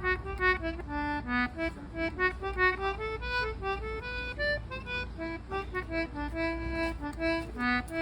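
Concertina playing an Irish tune, a melody of quick short notes with a few longer held ones.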